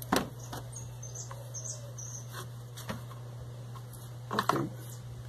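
Small clicks and knocks of hands and a tool working the plastic fuel-tank opening of a chainsaw, fitting the fuel hose and filter. The sharpest click comes right at the start, and a short cluster follows about four and a half seconds in. Underneath is a steady low hum, with faint bird chirps about one to two seconds in.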